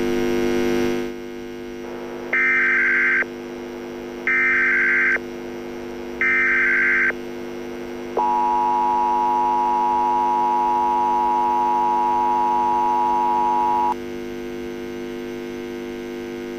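Emergency Alert System tones over a steady low hum: three bursts of SAME header data tones, each about a second long, then about six seconds of the steady two-tone attention signal, announcing a civil danger warning.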